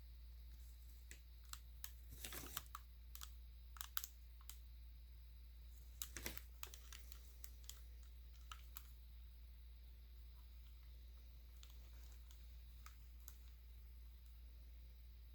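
Faint plastic clicks of a Rubik's cube's layers being turned by hand, in quick bunches about two and six seconds in, then only a few scattered clicks, over a steady low hum.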